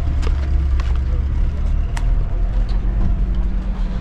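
Steady low rumble of vehicles, with a few faint clicks.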